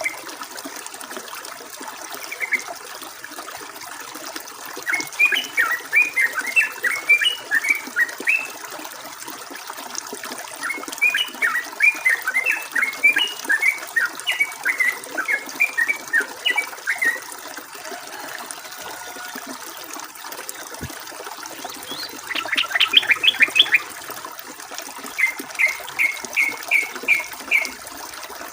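Yellow-vented bulbul (trucukan) song in several runs of quick, bubbly chattering notes, one ending in a fast rattle and the last in a string of about six evenly spaced notes, over the steady rush of flowing water.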